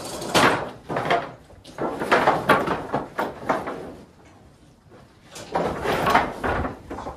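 Clattering and banging of metal cattle-handling gear, a squeeze chute and corral gates, in three bouts with a quieter spell in the middle.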